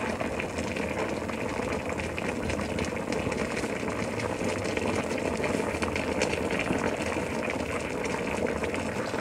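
Coconut milk simmering in a stainless steel pot around wrapped taro-leaf parcels: a steady bubbling with fine crackling.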